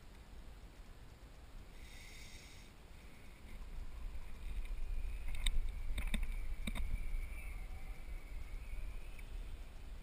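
Wind rumbling on a GoPro camera's microphone, swelling and easing, with a few faint clicks a little past the middle.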